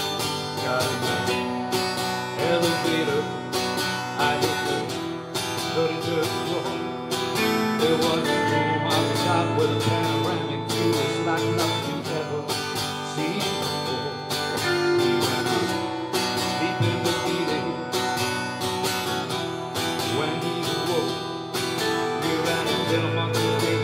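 Two guitars playing live together in an instrumental passage, strumming and picking steadily.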